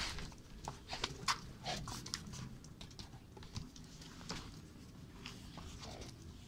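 Presa Canario playing with a rope toy: scattered clicks and scuffs from its claws on the paving stones and from mouthing the toy, thick in the first couple of seconds, then sparser.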